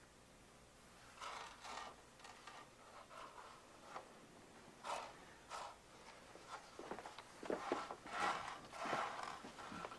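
Dried beans being slid and swept by hand across a wooden tabletop during sorting: quiet, irregular scraping and rattling strokes, busier and louder near the end.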